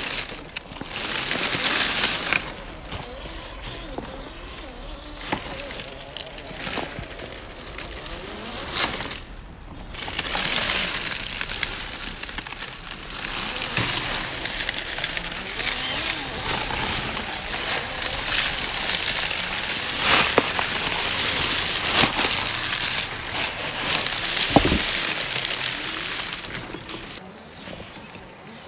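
Dry leaves crackling and small stones clicking as a scale RC rock crawler is driven over leaf-strewn rocks, with many sharp clicks over a steady hiss.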